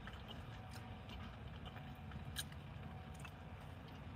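Faint chewing, a person eating a mouthful of food, with a few small mouth clicks over a low steady hum.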